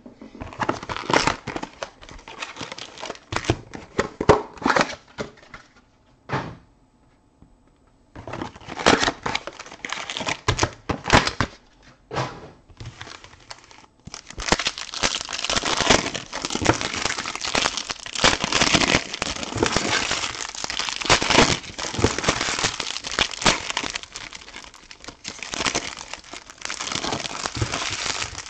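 Plastic wrappers on trading-card boxes being torn open and crinkled by hand, in irregular bursts. There is a brief pause about six seconds in and another about thirteen seconds in, then near-continuous crinkling.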